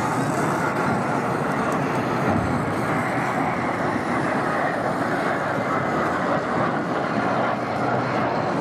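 Alpha Jet formation passing overhead: a steady rush of jet engine noise, its pitch sliding slightly lower over the middle seconds.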